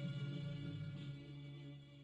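Closing music: a held chord fading out.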